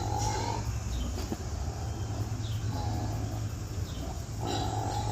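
Farm animals calling: three drawn-out calls, at the start, about three seconds in and near the end, over a steady low hum.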